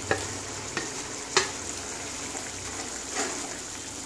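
Prawns scraped from a steel bowl into a wok of simmering curry and stirred in with a wooden spatula: a steady sizzle with a few knocks of the spatula and bowl against the pan, the sharpest about one and a half seconds in.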